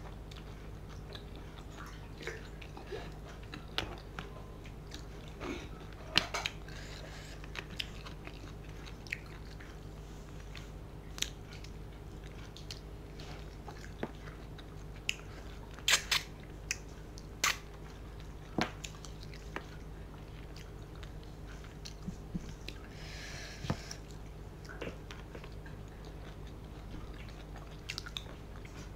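Close-miked eating sounds of rice and curry eaten by hand: wet chewing, lip smacks and sharp mouth clicks, with fingers working the food on a steel plate. The clicks come scattered, the loudest a little past halfway, over a steady low hum.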